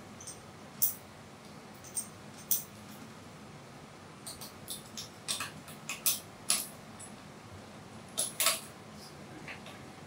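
Irregular short, sharp metal clicks and clinks of small steel vacuum-hose fittings being handled and fastened by hand, busier in the second half.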